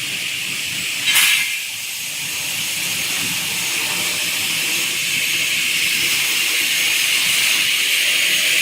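Single-head aluminium cutting saw with a 500 mm blade running with a steady hiss that slowly grows louder, with a short, loud burst of hiss about a second in.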